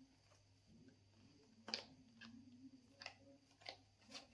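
Faint, scattered clicks and taps as a small cardboard box holding a wireless clip-on microphone set is handled and opened, about five of them, the loudest a little under two seconds in.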